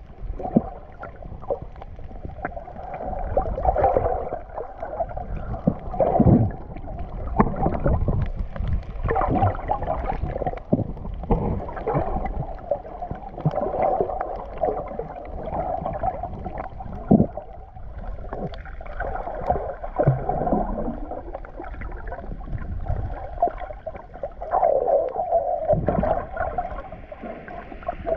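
Underwater sound picked up by an action camera in its waterproof housing: muffled water sloshing and gurgling, with frequent soft knocks and swells as the swimmer moves through the water.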